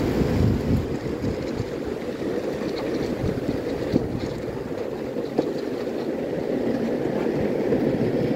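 Skateboard wheels rolling over asphalt: a steady low rumble, with two sharp clicks about four and five and a half seconds in.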